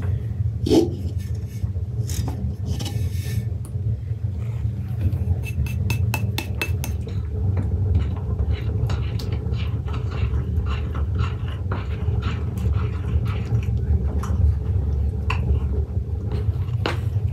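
Hands mixing flour and egg into dough in a glass mixing bowl: light taps and clinks against the glass, with a quick run of them about five seconds in, over a steady low rumble.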